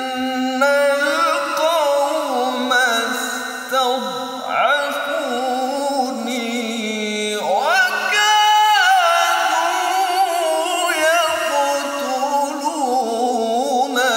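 A male qari reciting the Qur'an in melodic tilawah style, solo voice. He holds long notes that glide up and down, ornamented with quick trills.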